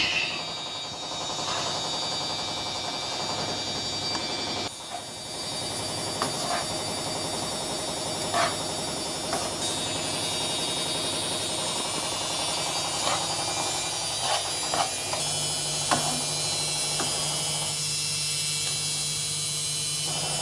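Egg fried rice frying in a non-stick pan, a steady sizzle under a constant hum, with a wooden spatula knocking and scraping against the pan a handful of times as the rice is stirred. A lower hum comes in about three-quarters of the way through.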